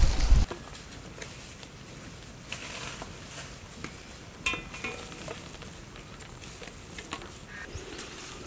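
Cooking oil pouring in a heavy stream onto green chillies in a large metal pan, cutting off suddenly about half a second in. After that it is quiet, with scattered light clicks and a sharper metallic clink about four and a half seconds in.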